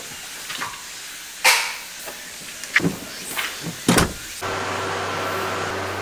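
A door being handled: a handle click and a few knocks and thumps, the loudest about a second and a half in. A bit past four seconds in, a steady low hum starts abruptly.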